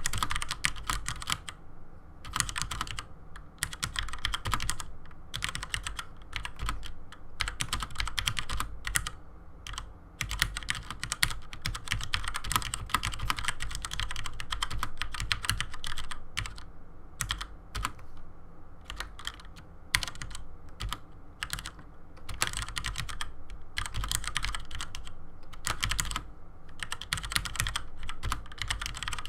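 Typing on a Cherry MX Board 3.0 mechanical keyboard with Cherry MX Red linear switches and low-profile keycaps. Rapid, continuous key clacking in runs, broken by brief pauses.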